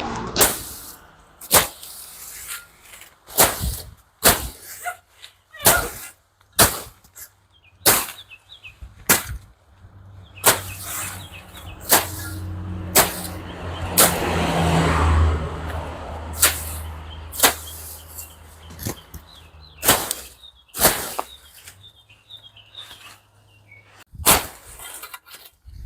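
Weeds being chopped by hand with a blade: repeated sharp cutting strokes, about one a second. A motor vehicle passes in the middle, its low hum swelling and fading.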